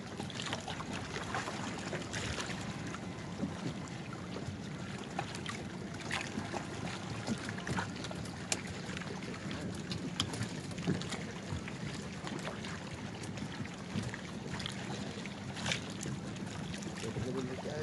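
Water lapping around a group of wooden outrigger canoes, with scattered sharp knocks and clicks of wood against wood as the boats and poles bump together.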